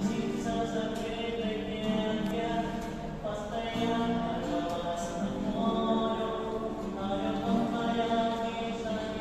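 A busker singing live, a melody of long held notes.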